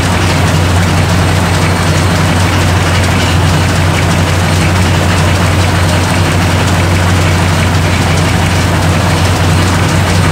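Large antique tractor engine running steadily at idle after a cold start, an even, heavy low-pitched drone with no change in speed.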